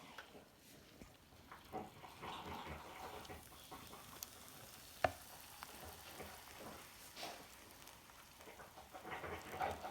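Faint kitchen handling noises while instant ramen is made with boiling water: scattered light knocks and rustles, with one sharp click about five seconds in.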